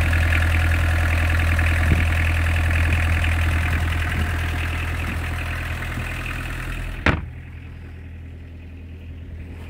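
Small inboard marine diesel engine idling steadily with its engine hatch open. The sound grows duller as the hatch is lowered, and the hatch shuts with a single thump about seven seconds in, leaving the engine running muffled beneath the deck.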